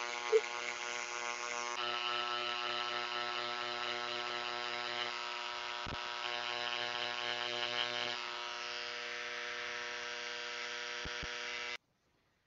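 Handheld electric vibrating engraver buzzing steadily as its tip textures the surface of a turned ash urn in small overlapping circles. The buzz cuts off abruptly near the end.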